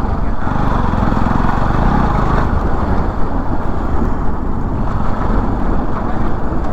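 Bajaj Pulsar NS200 motorcycle being ridden, its single-cylinder engine running steadily under a heavy, even low rumble.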